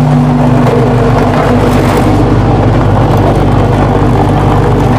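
Concrete paver-block making machinery running with a loud, steady mechanical hum: the concrete mixer and the mould table working.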